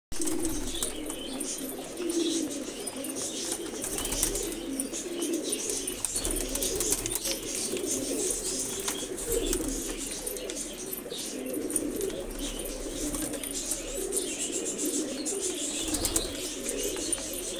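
A flock of domestic pigeons cooing together in a continuous low burble, with scattered wing flaps and a flurry of wingbeats near the end.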